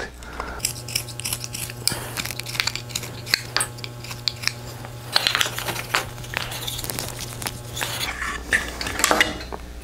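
Knife whittling a wooden handle end by hand: a string of short scraping cuts and clicks of the blade on the wood. A steady low hum runs underneath until near the end.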